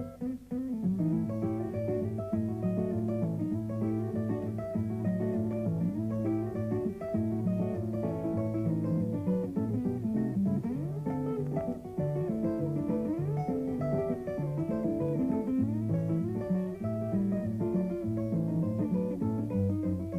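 Instrumental background music led by guitar, with sliding notes partway through.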